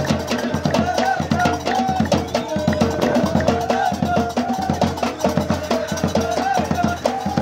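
Live Moroccan folk troupe music: drums struck in a fast, steady beat under a high melodic line that steps up and down in short repeated phrases.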